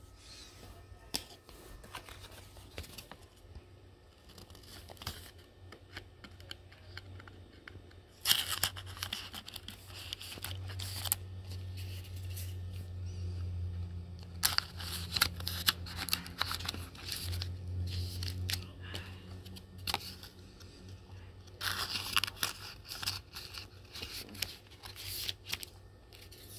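Clear plastic binder pocket pages crinkling and rustling as pages are turned and cards handled, in irregular bursts. A low hum comes in for several seconds in the middle.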